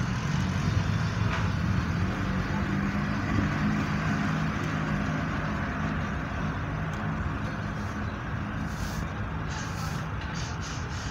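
Honda Civic sedan's engine running at a low, steady idle as the car rolls forward at walking pace, gradually getting quieter toward the end.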